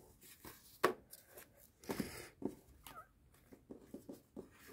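Handmade paper packets and cards being handled and set down on a windowsill: a few short soft taps and light paper rustling.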